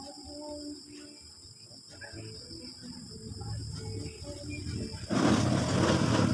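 Crickets chirping steadily in the background. About five seconds in, a loud, rough rushing noise starts suddenly and becomes the loudest sound.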